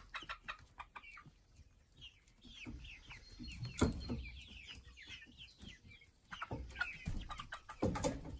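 A flock of young chickens clucking and peeping, many short calls that slide down in pitch. Two louder dull thumps stand out, about halfway through and near the end.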